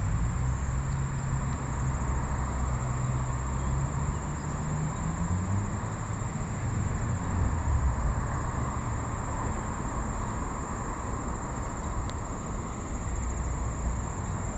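Low hum of a motor vehicle's engine, its pitch rising about five seconds in, over a steady high-pitched drone of insects.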